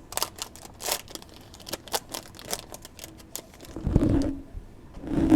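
A trading-card pack being torn open and its cards handled: a quick string of sharp crinkles and clicks, then two duller knocks, about four seconds in and near the end.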